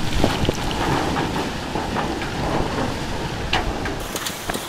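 Hurricane wind and driving rain near the eyewall: a steady dense rush with a low rumble of gusts and scattered sharp taps.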